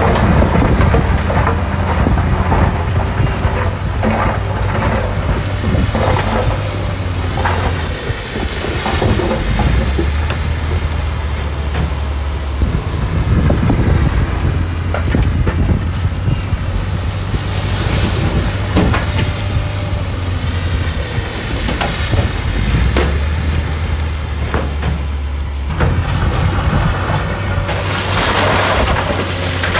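Heavy diesel construction machinery running, its engine working harder and easing off several times, with scattered knocks and clatters.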